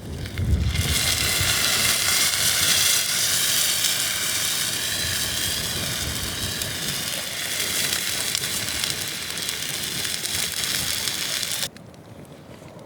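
Wood fire burning in a Swedish fire log with a pot or pan on it: a steady hiss and crackle that cuts off suddenly near the end.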